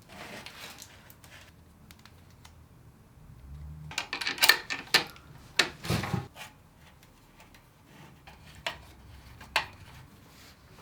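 Metal clinks and clatter of exhaust hardware and tools as a slip-on exhaust is fitted to a motorcycle: a burst of clinking with a dull knock in the middle, then two single sharp clicks near the end.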